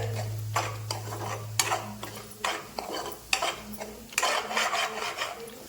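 Metal spatula stirring and scraping eggs being scrambled into bhurji in a kadhai, with the strokes coming irregularly about once a second over a frying sizzle.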